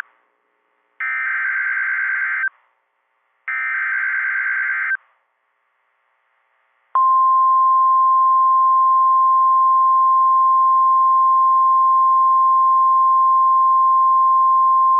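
Two EAS/SAME digital header bursts, each about a second and a half of harsh buzzing data and about a second apart. About seven seconds in they give way to the steady 1050 Hz NOAA Weather Radio warning alarm tone, one loud unbroken pitch that starts a new warning broadcast.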